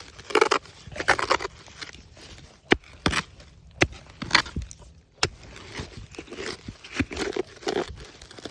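Digging in root-filled soil: a hand digging tool striking and scraping into the dirt in irregular strokes, with a few sharp cracks among the scrapes.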